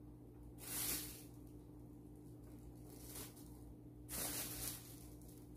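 Clear plastic wrapping rustling and crinkling in the hands in short bursts: one about a second in, a faint one around three seconds, and a longer one around four seconds in.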